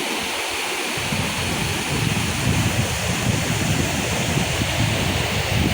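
Waterfall: a steady rush of falling water, with an uneven low rumble coming in from about a second in.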